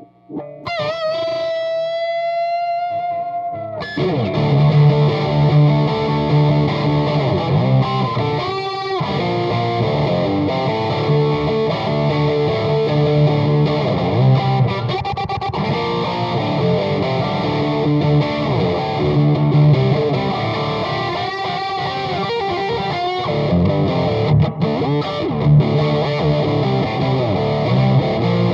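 Electric guitar through a Bogner Burnley distortion pedal and an Ampeg GVT5H tube head on low power into a 2x12 cabinet, playing a distorted rock jam. It opens with a single held note shaken with vibrato, then breaks into louder, chunky chord riffing about four seconds in.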